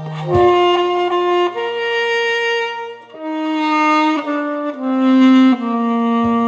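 Alto saxophone playing a slow melody of long held notes, the phrase stepping downward in pitch over its second half, with an accompaniment's low notes sounding beneath.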